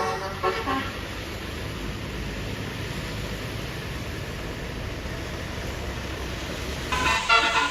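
Steady low rumble and hiss of road traffic, with the tail of a bus's musical telolet horn melody fading in the first second and another telolet horn melody starting near the end.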